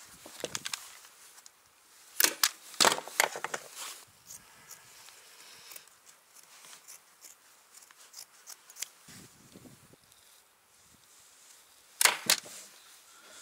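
Staple gun firing staples through carpet into a plywood board: sharp snaps in quick runs, a few at the start, a cluster about two to three seconds in, and two more near the end.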